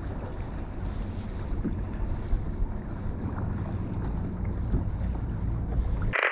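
Wind buffeting an action camera's microphone in a low, steady rumble, with water lapping around a kayak and a few faint ticks. Near the end the sound cuts out briefly after a short sharp noise.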